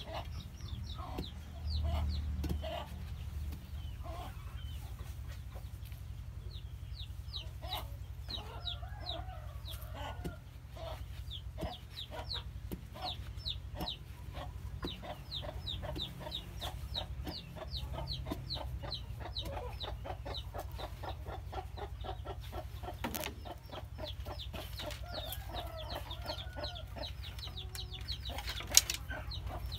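Chickens clucking, with rapid high peeping repeated several times a second. A few sharp knocks come from a steel rod being jabbed into the soil, the loudest near the end.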